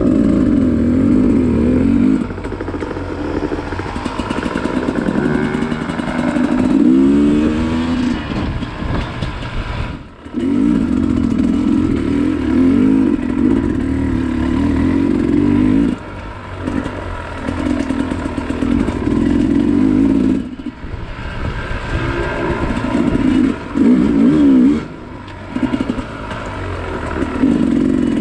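Dirt bike engine running under way on a trail, its pitch rising and falling with the throttle: several quick revs that climb in pitch, and brief drops in power as the throttle is shut off about ten seconds in and a few more times later.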